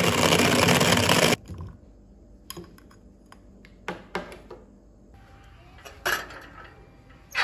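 Portable rechargeable bottle blender running with a loud, even whir as it blends a protein shake, cutting off about a second and a half in. Then a few light clicks and knocks of the plastic jar being handled.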